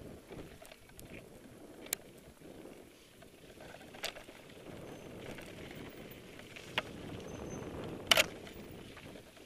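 Mountain bike rolling over rock slabs and leaf-covered trail: a steady rumble of the tyres, with several sharp knocks from the bike striking rock, the loudest a quick double knock near the end.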